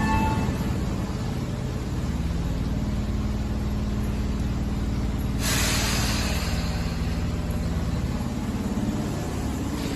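Tobu 10000 series electric train running with a steady low hum, and a short hiss of air about halfway through.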